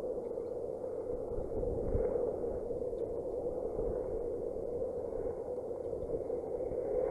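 Wind on an outdoor microphone: a steady rushing noise with low rumbling gusts about two and four seconds in.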